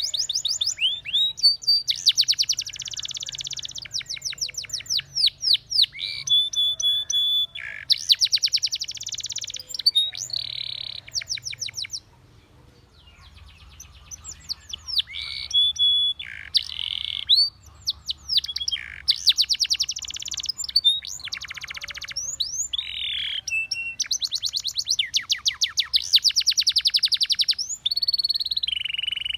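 Spanish Timbrado canary singing a long song: phrases of rapid trills alternating with held, whistle-like notes, with a short pause about halfway through.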